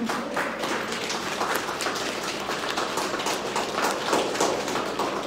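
A small group of people applauding: many quick, irregular hand claps.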